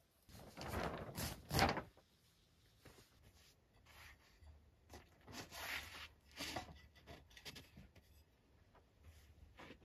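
Canvas and tarp rustling and scraping as a wall tent is being rigged, in irregular bursts, loudest about half a second to two seconds in, followed by a string of shorter rustles.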